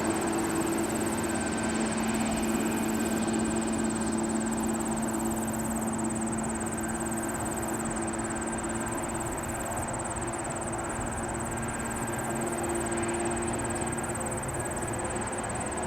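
Jet ski engine running steadily at a constant pitch over a steady rushing noise, the engine tone easing slightly near the end.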